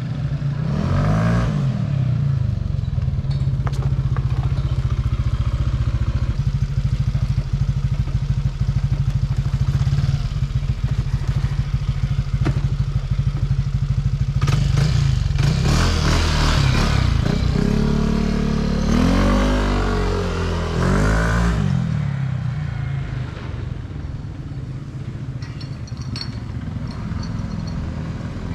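Yamaha Aerox 155 scooter's single-cylinder engine through an aftermarket WF exhaust pipe: it idles steadily for about twelve seconds, then revs and accelerates away with the pitch rising and falling several times, and fades out near the end.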